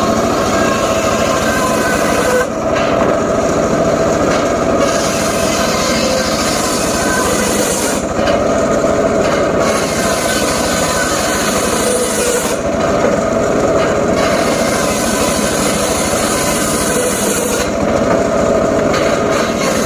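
Homemade circular saw running continuously while it cuts johar wood. Its sound changes in a repeating cycle about every five seconds, with the high end dropping away for a second or two each time.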